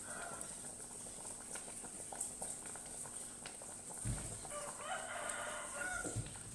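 Pot of mung beans boiling on a gas stove, with faint bubbling and scattered clicks. About four and a half seconds in, a rooster crows once, for about a second and a half.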